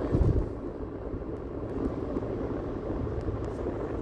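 Steady road and engine rumble heard inside the cabin of a moving SUV, with one brief low thump just after the start.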